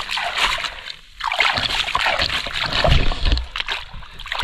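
River water splashing and sloshing as a person rinses off at the bank, in a run of splashes with short pauses between them. The heaviest splash comes about three seconds in.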